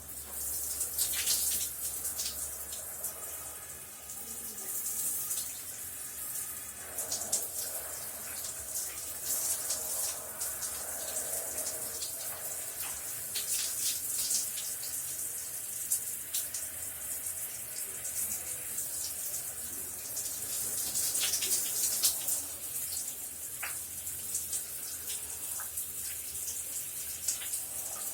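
Shower running: a steady hiss of falling spray with irregular louder splashes and drips.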